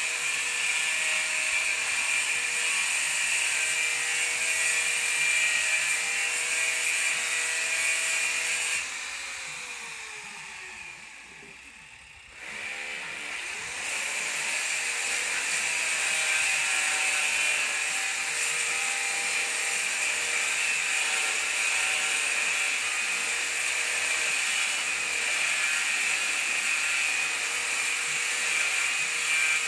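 An electric power tool's motor running with a steady whine. About nine seconds in it winds down with falling pitch over about three seconds, then starts up again and runs on steadily.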